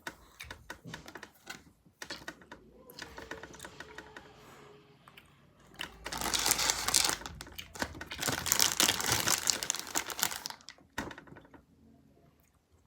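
Plastic candy bag crinkling and rustling as a hand reaches in for a gummy bear, with scattered clicks at first and two loud spells of crinkling in the middle.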